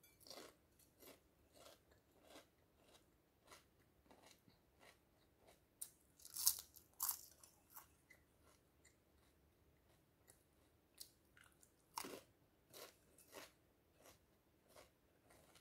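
Chewing and crunching of a pumpkin seed seaweed crisp: a steady run of short, crisp crunches, about one to two a second, with a few louder bites around the middle and near the end.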